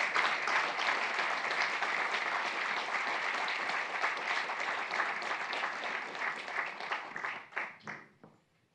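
Audience applauding: a steady round of clapping that thins to a few last separate claps and dies away near the end.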